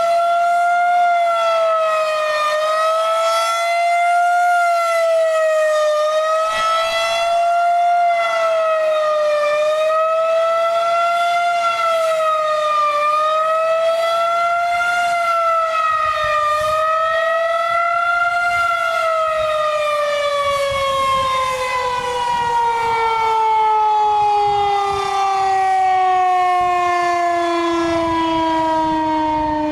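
Federal Signal 2001-130 electromechanical warning siren sounding a fast wail: its tone rises and falls a little about every three seconds. About two-thirds of the way in, the wail stops and the tone slides steadily down as the siren winds down.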